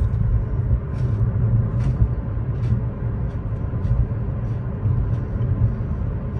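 Road and engine rumble inside a moving Buick's cabin, a steady low drone, with faint short clicks scattered through it.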